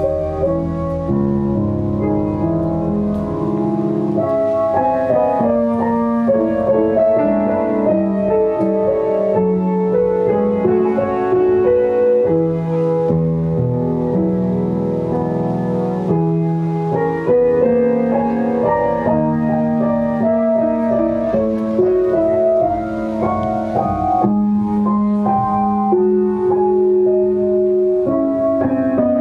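Live instrumental band music: layered, sustained melodic notes with a keyboard-like tone moving step by step over a low bass line.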